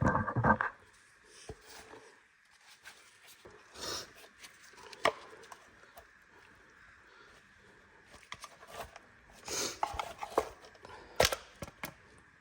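Handling noises from a scooter's plastic air filter box cover and intake snorkel: scattered clicks, knocks and rubbing, with a cluster at the start, a few more about four to five seconds in, another cluster near ten seconds and one sharp click just after.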